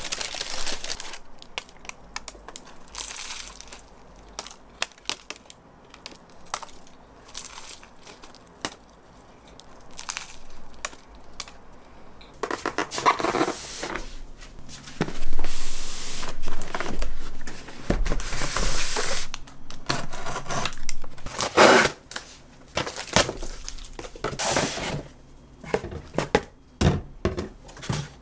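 Paper crinkling and cardboard box handling: parcels set down, flaps and packing torn open, with rustling swishes and sharp knocks, louder in the second half. Near the end, plastic bottles are knocked onto a stone counter.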